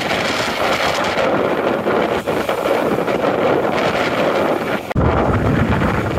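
Waterfall and mountain stream rapids rushing steadily over rocks. About five seconds in, the sound shifts abruptly to a deeper rumble of wind buffeting the microphone.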